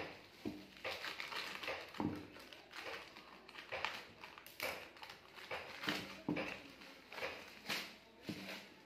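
Thin clear plastic wrapping crinkling and rustling in irregular bursts as it is cut open with scissors and pulled off a ball, with a few light taps from the handling.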